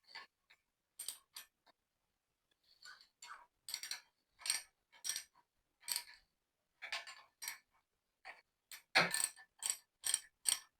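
Hand tools working the handlebar riser bolts: a run of short metallic clicks and clinks, irregular at first, then about two a second and louder from about nine seconds in.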